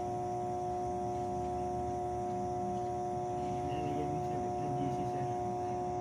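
Energized 69 kV substation power transformer humming: a steady, unchanging electrical drone of a few fixed tones over a low rumble.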